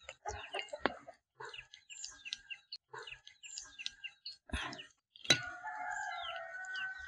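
A rooster crowing: one long call of about two seconds that starts suddenly about five seconds in. Before it come scattered short bird chirps and clucks, and a couple of sharp clicks.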